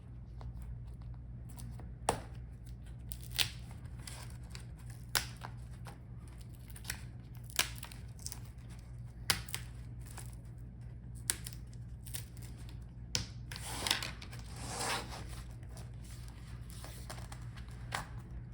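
Plastic clips of a laptop's LCD front bezel clicking loose one after another as a plastic pry tool works along its edge, about a dozen sharp clicks at uneven intervals, with short scraping and peeling sounds near the end.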